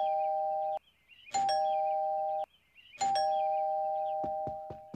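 Two-tone doorbell chime ringing ding-dong three times in a row, a high note then a lower one, each held about a second; the last rings on longest. A few faint clicks come near the end.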